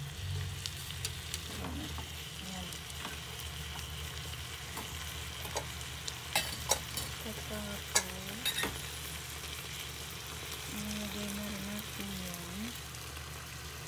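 Chicken pieces, onion and carrot sizzling steadily in sauce in a non-stick pot while they are stirred with wooden chopsticks. A few sharp clicks of the chopsticks against the pot come between about six and eight and a half seconds in.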